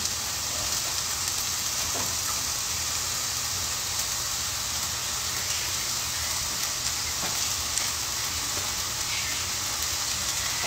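Food sizzling as it fries in a pan: a steady hiss with faint scattered crackles.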